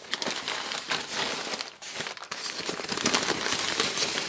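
Thin wrapping paper crinkling and rustling as hands unwrap it, a dense run of crackles with a brief lull about two seconds in.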